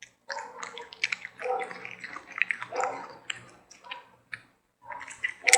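Close, wet mouth sounds of a puppy licking and smacking, in irregular bursts with a couple of short pauses.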